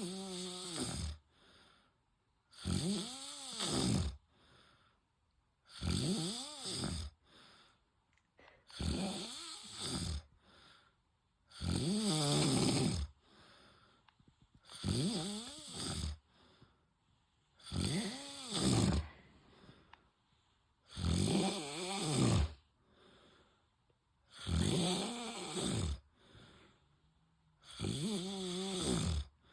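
A man snoring in his sleep, about ten snores at a steady pace of one every three seconds. Each snore lasts a second or so, with a buzzing pitch that rises and then falls.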